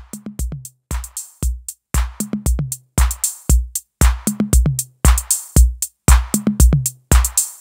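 A 606 drum-machine beat run through a heavily compressed audio compressor, with ratio and threshold pushed hard, getting steadily louder over the first few seconds as the make-up gain is turned up.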